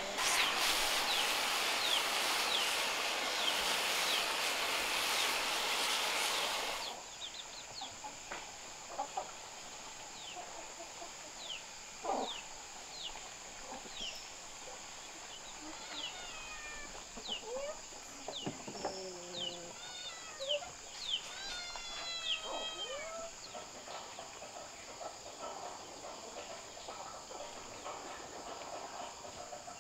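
A steady loud hiss for the first seven seconds that cuts off suddenly. Then chickens clucking and peeping around a farmyard, with many short high chirps and a run of pitched calls about three-quarters of the way through.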